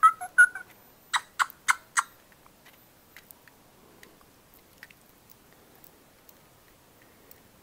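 Handling of a Fingerlings baby monkey toy while it is rocked in the hand. The toy's short electronic chirp ends right at the start. About a second in come four sharp clicks, and after them only scattered faint ticks.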